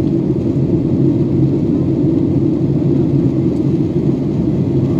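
Steady low rumble of a passenger airliner's cabin in flight, heard from a window seat inside the cabin.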